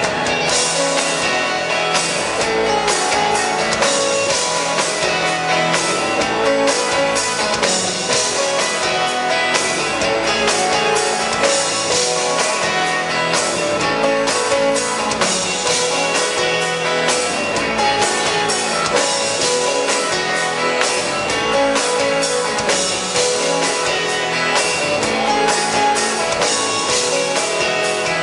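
Live rock band playing an instrumental passage with strummed guitars and drum kit, no singing.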